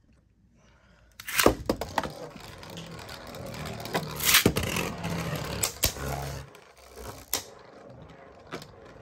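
Beyblade spinning tops launched into a plastic stadium: a sharp clack about a second in, then whirring and scraping across the plastic bowl, with several more clacks from launches and hits, quieter near the end.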